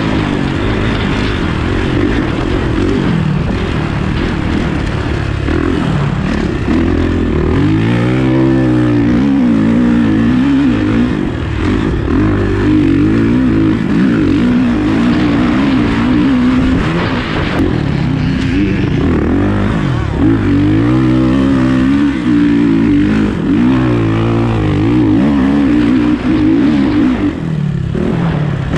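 Dirt bike engine run hard around a motocross track, its pitch repeatedly climbing as the throttle is opened and falling back as it is shut off.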